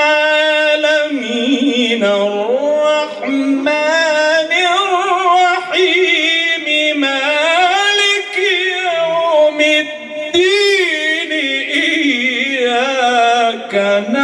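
A single voice chanting one long, ornamented melodic line, the pitch winding up and down with held notes, in the manner of Quran recitation.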